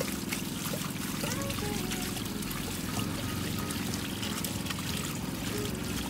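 Water pouring steadily from a plastic jug onto a load of wet clothes in the wash basin of a twin-tub washing machine, filling it for the rinse cycle.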